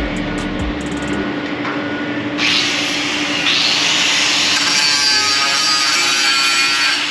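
A power tool cutting metal bracket steel: it bites in abruptly a little over two seconds in and keeps up a harsh, rasping hiss.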